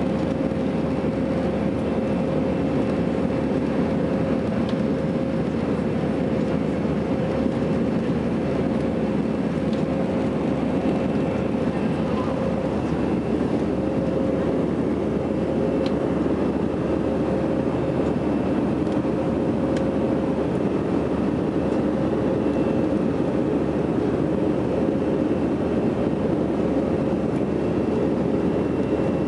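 Cabin noise of an Airbus A319 climbing after takeoff: the even rush of its turbofan engines and airflow, with a steady hum tone running through it, heard from inside the cabin.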